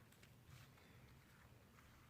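Near silence with a few faint, soft clicks from light handling.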